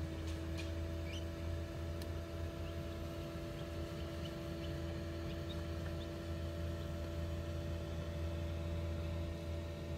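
Steady hum of the Genesis Hovabator 1588 incubator's fan, with a few faint, short, high peeps from newly hatched chicks inside.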